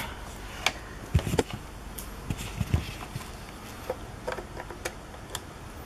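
Cables and plastic connectors being handled on a tabletop: scattered small clicks and taps with a few soft low thumps, over a faint steady hiss.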